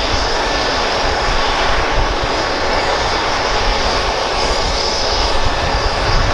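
Eurocopter EC135 P2+ helicopter running on the ground, its twin Pratt & Whitney PW206B turboshaft engines and main rotor turning steadily: a constant high turbine whine over the rushing rotor noise and a low rumble.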